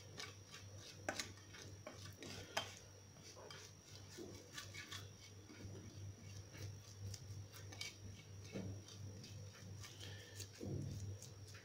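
Metal spoon scraping and tapping against a ceramic plate while stirring a spice and olive-oil marinade into a paste: soft, irregular clicks, with a few sharper taps in the first three seconds.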